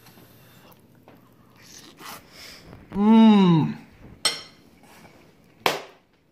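A man humming a long rising-and-falling "mmm" of enjoyment with his mouth full as he tastes the food, followed by two short sharp clicks.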